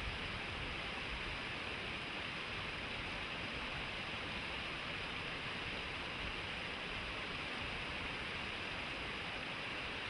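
Shallow stream rushing over flat rock ledges in small cascades: a steady, even hiss of flowing water.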